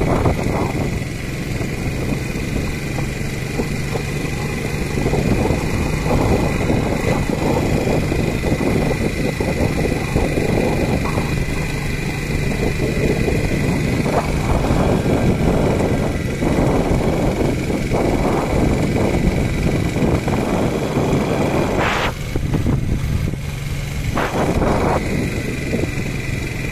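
Honda C70 small single-cylinder four-stroke engine running as the moped is ridden along a road, with wind rushing over the microphone. A steady high whine sits over the engine note.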